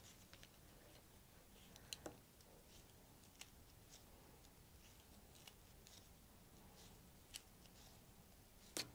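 Faint scattered clicks and rustles of wooden double-pointed knitting needles working strips of tulle netting, with a couple of sharper ticks about two seconds in and near the end.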